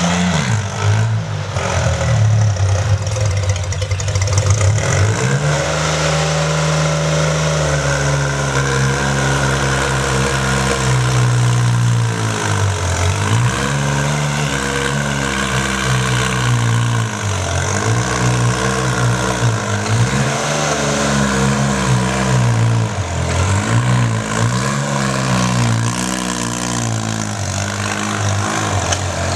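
Sonalika DI 22 mini tractor's diesel engine running hard while pulling a harrow, its pitch dipping and recovering every few seconds as the engine labours under the load.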